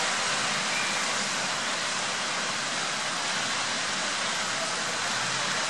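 Heavy rain pouring down in a steady hiss onto a city street, with a car's tyres swishing through the water on the road as it drives past.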